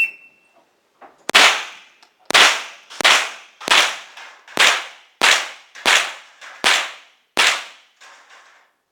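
Shot timer beep, then a rimfire rifle firing nine shots in a steady string, roughly one every 0.7 seconds, each crack trailing off briefly.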